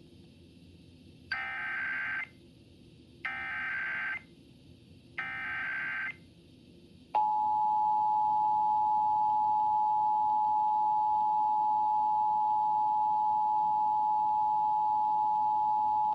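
Emergency Alert System Required Monthly Test tones over FM radio. First come three one-second bursts of SAME header data, a buzzy digital screech, about two seconds apart. Then the steady two-tone EAS attention signal (853 and 960 Hz) starts about seven seconds in and holds for about nine seconds.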